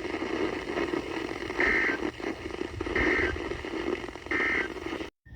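Radio static hissing steadily, with three short even high beeps about a second and a half apart.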